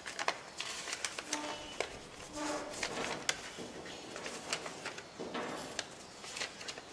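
A folded paper instruction leaflet being unfolded and handled: irregular crinkles and rustles of paper.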